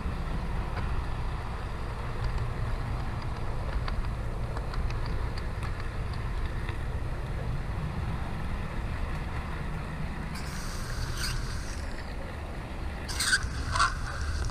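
HO scale model trains running on the layout: a steady low rumble of motors and wheels on the track with faint scattered clicks. Near the end come two short, sharper clatters as a passenger train passes close by on the next track.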